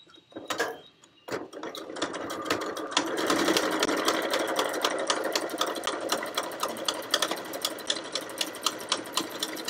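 Janome 2160 sewing machine stitching through fabric on its stitch 4, a straight stitch that goes back and forth several times: a rapid run of needle strokes that starts about a second and a half in, picks up a second later and stops near the end.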